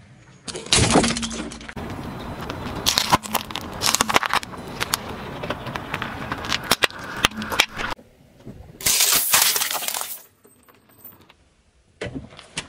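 Objects, among them a plastic toy figure, being crushed under a car tyre: a dense run of sharp cracks, snaps and crunches, then a louder crunching stretch about nine seconds in, a short lull, and a few more clicks near the end.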